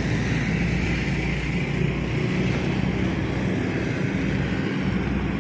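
Steady street traffic noise with a motor vehicle engine running.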